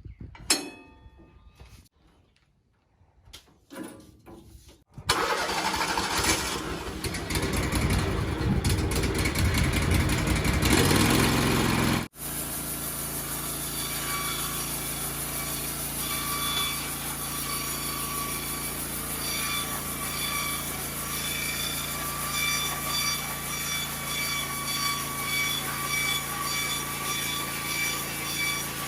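Sawmill engine starting and running. It comes in loud about five seconds in and climbs, then drops suddenly around twelve seconds to a steady run with a low hum and a high whine.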